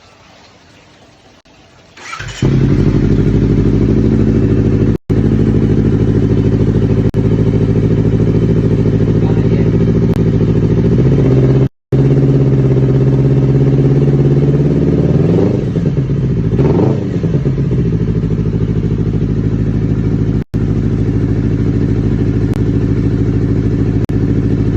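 Honda CBR250RR's parallel-twin engine through a LeoVince GP Corsa slip-on exhaust with no dB killer, starting about two seconds in and settling into a steady idle. Past the middle the throttle is blipped twice, the pitch rising and falling back to idle; the sound drops out in three brief silent gaps.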